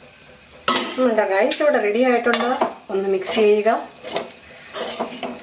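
A metal spoon stirring and tossing fried rice in a metal kadai, scraping and clinking against the pan in a string of squeaky, pitched strokes. It starts about a second in.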